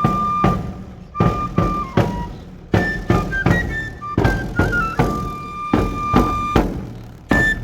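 Traditional pipe and drum music: a high wooden pipe plays a melody of held and stepping notes over drum strokes about every half second.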